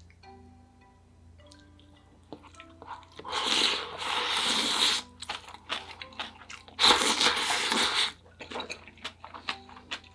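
Two long, loud slurps of spicy ramyeon, each about a second and a half, the second starting about three seconds after the first, followed by small wet chewing clicks. Soft chiming background music plays underneath.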